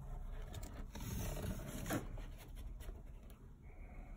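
Empty cardboard box being handled and turned over, the cardboard scraping and rustling, loudest about one to two seconds in, with a few small knocks.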